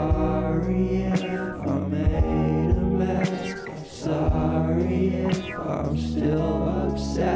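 Music with singing voices over sustained low bass notes.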